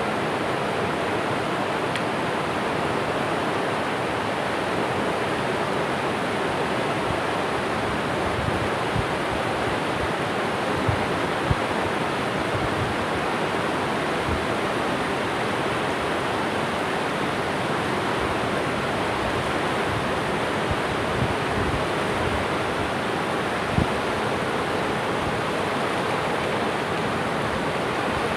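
Steady rush of a fast-flowing river running over rocks, with a few brief low thumps scattered through it.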